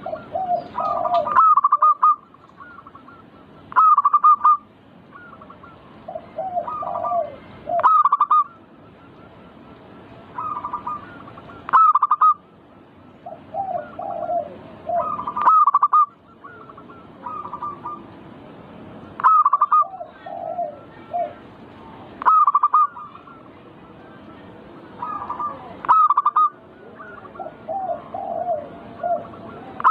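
Zebra dove (perkutut) cooing song, a phrase about every four seconds, each a lower rolling coo followed by louder, higher clipped notes.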